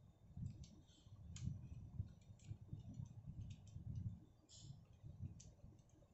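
Faint, irregular clicks and scrapes of a screwdriver turning the terminal screw of a single-pole MCB, clamping a wire into it.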